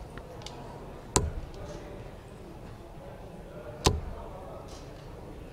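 Two steel-tip darts striking a Unicorn Eclipse sisal bristle dartboard, each a sharp thud, about 2.7 seconds apart, over a low steady hall background.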